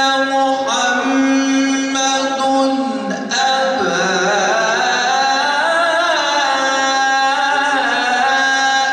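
A man's melodic Quran recitation (tilawah): long held, ornamented notes with wavering pitch, a short break for breath about three seconds in, then a phrase that climbs in pitch and settles back down.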